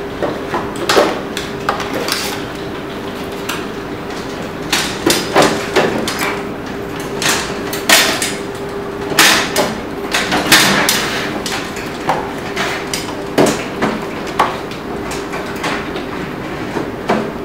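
Irregular knocks, clunks and scrapes of a metal-cased DNP DS620 photo printer being handled, slid into a photo booth's printer bay and pushed into place, over a steady low hum.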